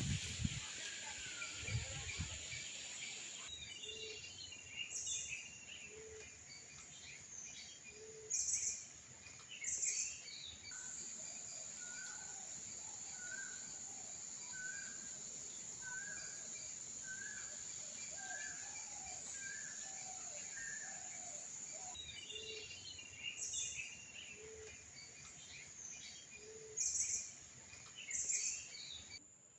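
Several birds singing and calling over a steady high-pitched hiss. One bird gives an even series of short whistled notes, a little more than one a second, through the middle. Low single notes come about every two seconds, and a few loud, high chirps and trills stand out.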